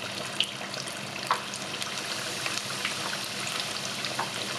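Battered banana pieces deep-frying in a pan of hot oil, a steady sizzle full of fine crackles with a few sharper pops.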